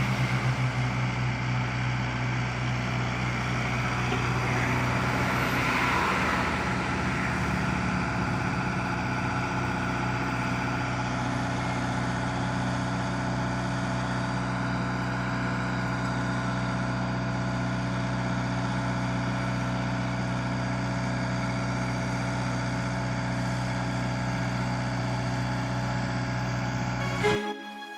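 Komatsu PC75UU excavator's diesel engine running steadily, with a brief swell of noisier sound about four to six seconds in. The engine sound cuts off just before the end, where music starts.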